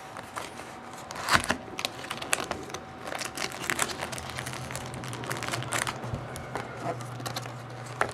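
Keyboard packaging being handled and opened: irregular crinkling and rustling with sharp crackles, the loudest about a second and a half in. A faint steady low hum comes in about four seconds in.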